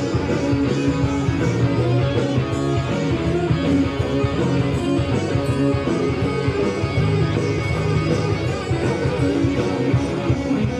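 A hard rock band playing live, heard from the crowd: electric guitars, bass and drums in a steady instrumental passage with no singing.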